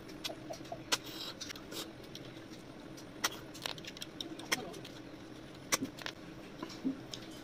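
Close-miked eating of river snails by hand: an irregular series of sharp clicks and smacks as the shells are handled and eaten from, about a dozen in all.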